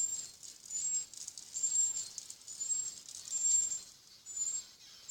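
Electronic boxing machine sounding a short high beep about once a second, with light rattling clinks.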